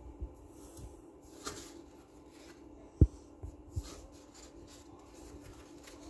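Pages of a coloring book being turned by hand, with light paper rustles and a sharp thump about three seconds in, then a softer thump just after.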